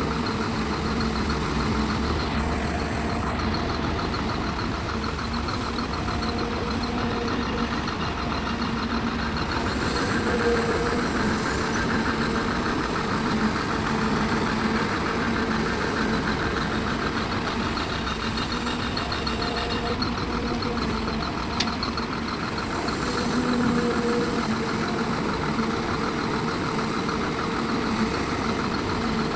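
A heavy diesel engine on an excavator or dump truck running steadily at an even pitch, swelling slightly in loudness a few times.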